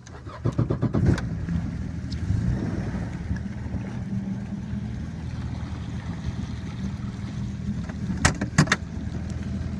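Jet ski engine running low and steady, growing louder about half a second in. A few sharp knocks come close together near the end.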